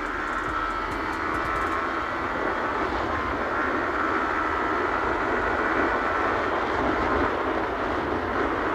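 Yamaha R15 V3's 155 cc single-cylinder engine running steadily under way, mixed with the rush of wind past the rider.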